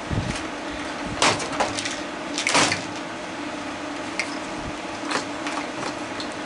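Scattered knocks and clatter of hard plastic parts and hand tools being handled while a small motor is worked out of a plastic animatronic figure, over a steady low hum; the loudest knocks come about a second and two and a half seconds in.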